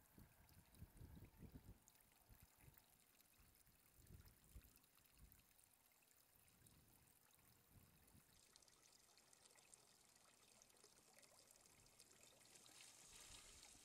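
Faint, steady pour of water from a PVC pipe into a stream table, running over the sand-like fill. The rushing grows a little louder near the end, and a few soft low thumps come in the first few seconds.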